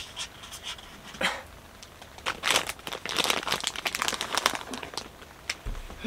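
Clear plastic muffin wrapper crinkling as it is handled and opened: a few light clicks, then a dense run of crackling from about two seconds in until near the end.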